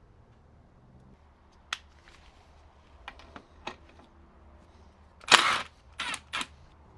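Metal engine parts being handled on a workbench: a few sharp clicks, then one loud short clattering burst followed by two shorter ones near the end.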